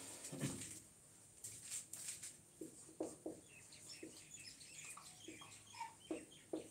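Marker pen squeaking in short chirps on a whiteboard while words are written, with a few light taps of the pen on the board.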